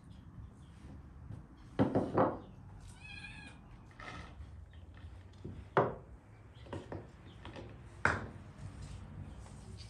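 Dried fruit tipped from small wooden bowls into a larger wooden bowl, with a few sharp wooden knocks: a cluster about two seconds in, and others near six and eight seconds. A short, high animal call sounds about three seconds in.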